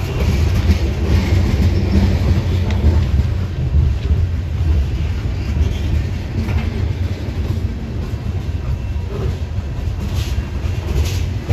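Union Pacific coal train's steel-wheeled coal gondola cars rolling past close by: a steady, loud, low rumble of wheels on rail.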